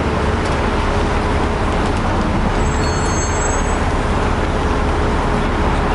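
Steady rumble of a moving open-top double-decker bus and surrounding road traffic, heard from the open upper deck.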